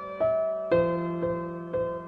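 Slow, gentle piano music: single notes struck about twice a second, each ringing and fading before the next.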